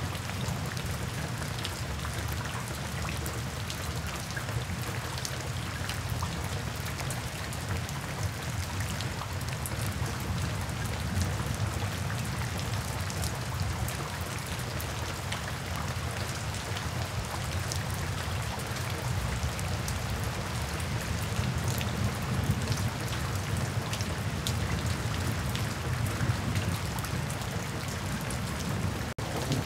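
Steady rain falling, with many individual drops ticking over a steady low rumble.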